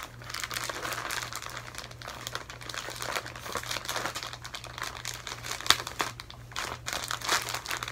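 Plastic bag packaging crinkling and rustling in irregular bursts as hands work it open, with one sharper crackle a little before six seconds in. A steady low hum runs underneath.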